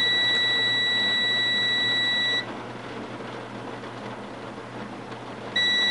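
UNI-T digital multimeter's continuity beeper sounding a steady high beep for about two and a half seconds while its probes rest on a shorted USB 2.0 data line reading a few ohms, a sign of a defective Intel PCH chip. It stops, then beeps again briefly near the end, which the repairer puts down to the probe touching ground.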